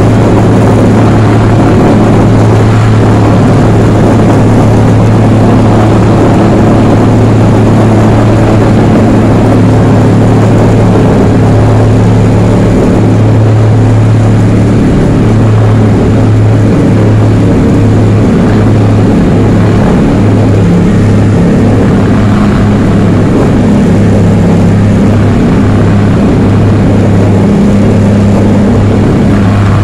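Small airplane's propeller engines droning steadily at climb power just after takeoff, heard inside the cabin: a loud, constant low hum with a few overtones above it.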